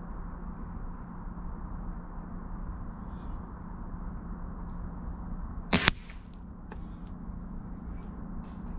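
A .22 air rifle pellet striking a steel plate target: one sharp metallic smack with a brief ring, about six seconds in, over a steady low background noise.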